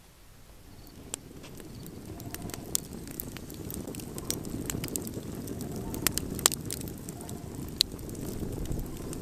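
Wood campfire burning: a low rushing sound with scattered sharp crackles and pops from the burning logs. It fades in and grows steadily louder.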